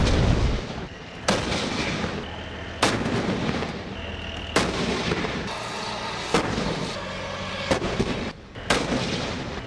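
Tank guns firing live rounds on a range: about seven heavy reports, one every second or two, each trailing off before the next.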